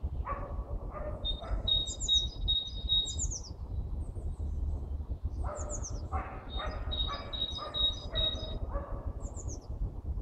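Birds calling in spring: two runs of harsh, repeated calls, the second run about five seconds in, with higher clear whistled notes and short falling whistles over them. A steady low rumble lies underneath.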